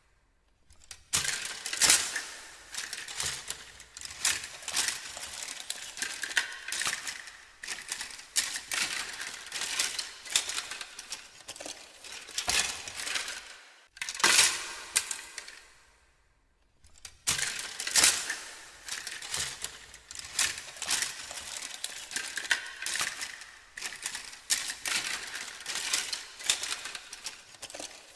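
Hands rummaging through a pile of objects: continuous irregular clattering and clinking of small hard items, with some rustling. It starts about a second in and pauses for a few seconds around the middle.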